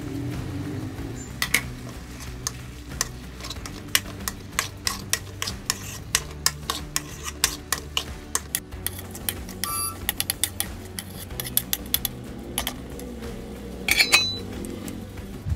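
A spoon stirring diced turnip in a metal kadhai, scraping and clinking against the pan in irregular sharp clicks, two or three a second. Near the end a steel lid is set on the pan with a loud ringing clatter.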